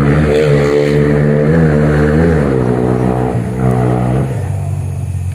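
Motorcycle engine revving, loud, its pitch rising and falling, then dropping to a lower, steadier note about four seconds in.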